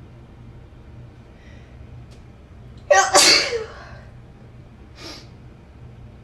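A person sneezes once, loudly, about three seconds in: a short voiced 'ah' breaking into a hard burst of breath. A much quieter breath follows near the end.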